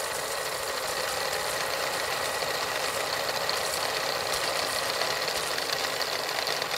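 A steady, fast mechanical rattle with a faint high whine.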